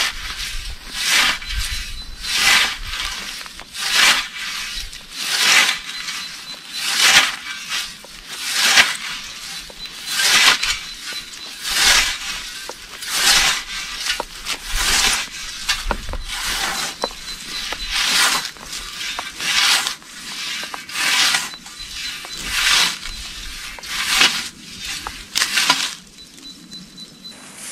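Scythe blade cutting short meadow grass by hand: a steady series of swishing strokes, about one every second and a half, stopping near the end.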